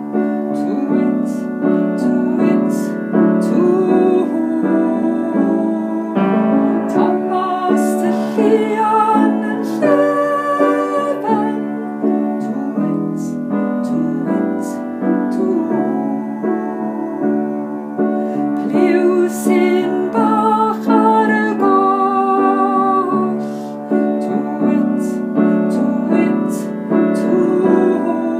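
Keyboard music: a melody over steadily held chords, with some wavering notes, played as an interlude in a sung story.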